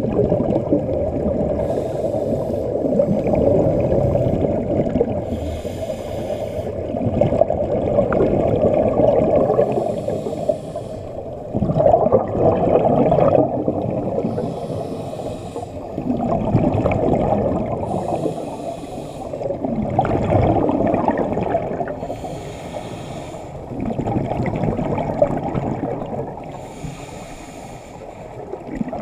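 Scuba diver breathing through a regulator underwater: a brief hiss at each inhale, about every four seconds, alternating with the rumbling gurgle of exhaled bubbles.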